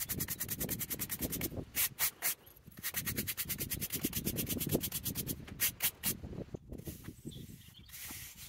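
Polyethylene push broom sweeping dry sand across concrete block paving, the bristles scratching in quick repeated strokes as the sand is brushed into the paving joints. The strokes ease off and go quieter for the last second or two.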